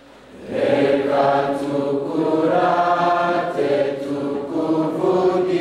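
A choir of students singing together, many voices in chorus, coming in loudly about half a second in.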